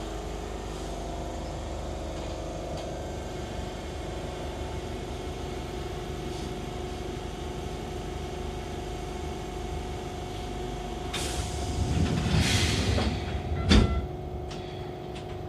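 Enshu Railway electric train running, heard from inside: a steady hum of the motors and wheels with several held tones. Near the end comes a louder hissing stretch lasting a couple of seconds, then a sharp knock.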